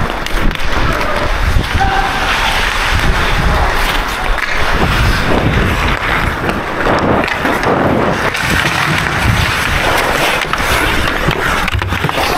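Ice hockey skate blades carving and scraping across the rink ice, with knocks of sticks on the puck.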